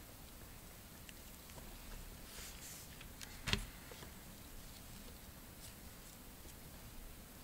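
Quiet room tone with faint rustling and scattered small clicks, and one short knock about three and a half seconds in.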